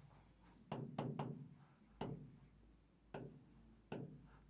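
Marker pen writing on a whiteboard: about five short, faint strokes and taps spaced out through the moment.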